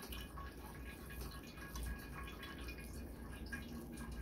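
A spoon stirring cooked seasoned rice in a nonstick pot: soft scraping and many small irregular clicks over a steady low hum.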